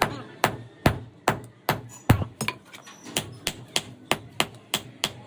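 Hammer striking metal in a steady rhythm, about two blows a second at first and quickening to about three a second partway through, each blow with a short ring.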